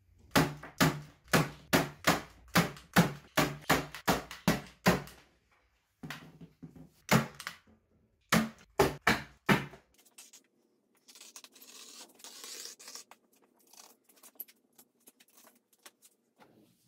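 Electric staple gun firing staples through upholstery fabric into an MDF cushion base. There are about twenty sharp shots, two to three a second, in three quick runs, followed by several seconds of soft rustling.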